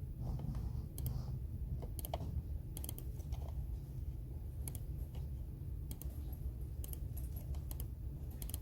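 Computer keyboard typing: scattered, irregular keystroke clicks with pauses between them, over a low steady hum.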